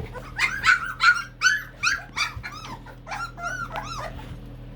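Young Chesapeake Bay Retriever puppies whining and yelping, a quick run of short high cries that dies away about four seconds in.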